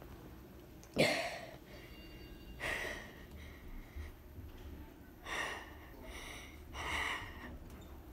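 A person breathing close to the microphone: four short, breathy bursts of exhaling or whispering, the first, about a second in, the sharpest and loudest.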